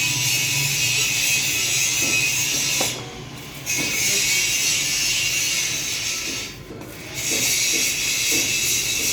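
Electric arc welding: the steady sizzling crackle of the arc, which breaks off twice for under a second and strikes up again.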